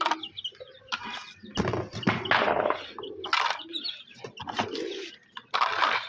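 Hard plastic feed boxes knocking and clattering as they are handled and set down on concrete, in uneven bursts, with birds calling in the background.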